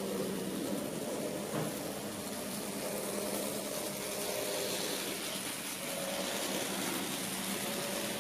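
HO-gauge model train running through a tunnel and out along the track: a steady hum with a rolling rumble from the wheels on the rails, and one short click about a second and a half in.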